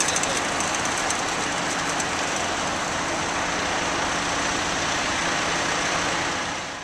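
Fire engine's diesel engine idling steadily, with light clicking in the first couple of seconds. The sound fades out near the end.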